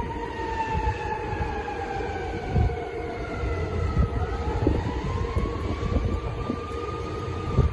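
Fire truck siren wailing: its pitch falls slowly for about four seconds, then climbs back up and levels off. Underneath is a steady low rumble with a few thumps.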